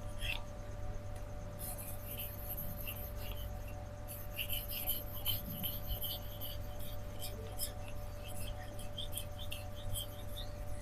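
Steel knife blade being drawn across a Shapton Rockstar 4000-grit whetstone in repeated scraping strokes, with small clicks between them. These are the sharpening passes that raise and move the burr on the edge.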